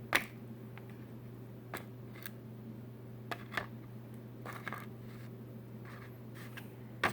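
Plastic knife packaging being cut and pried open with a knife: scattered short clicks, snips and brief rustles at irregular intervals, over a steady low hum.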